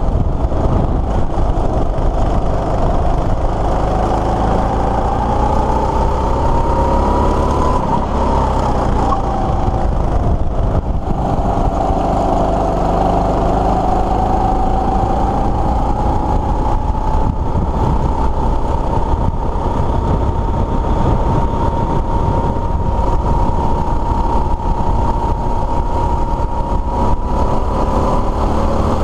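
Go-kart engine running under the driver at speed. Its pitch climbs, falls briefly about ten seconds in as the revs drop, then rises again and holds high.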